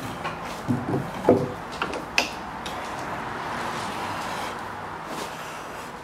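Several wooden and metallic knocks and clunks in the first two seconds as a timber block and the steel rip fence are handled on a circular saw table, the loudest about a second in, over a steady hum of workshop machinery.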